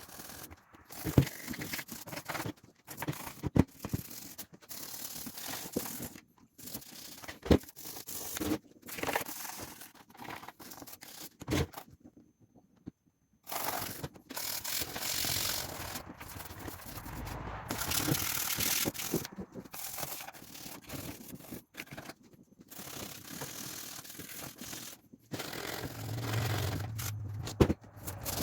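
Hands scraping, rubbing and clicking on a plastic motorcycle airbox as it is cleaned, with irregular stretches of scratchy noise and sharp knocks now and then, and a brief pause about twelve seconds in.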